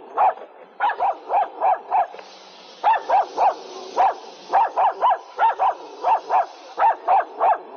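Small dog barking in a rapid run of short, high yaps, about three to four a second, with a couple of brief pauses.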